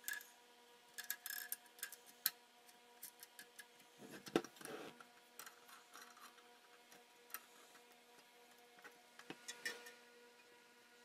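Faint, irregular clicks and light knocks of small parts and hand tools being handled, busiest about four to five seconds in, over a faint steady hum.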